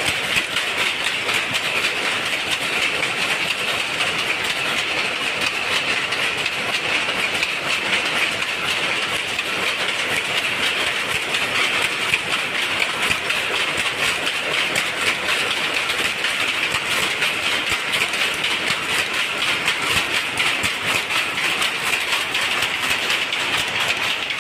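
Jacquard shuttle power looms running: a steady, loud, rapid mechanical clatter of the shuttle being thrown and the reed beating up the weft.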